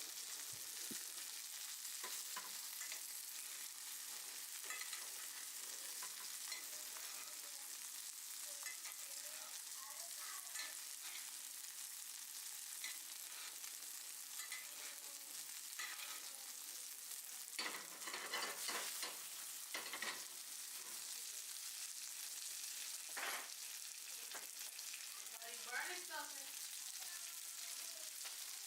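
Ribeye steak sizzling steadily as it sears in butter and oil in a skillet, the final sear of a reverse-seared steak, with small crackles and pops of spitting fat. A few louder knocks and clatters sound over it, mostly around the middle and near the end.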